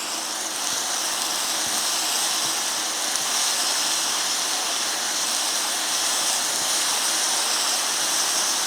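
Oil sizzling steadily in a hot pan as lemon, onion, garlic and chili stir-fry, an even hiss with no breaks.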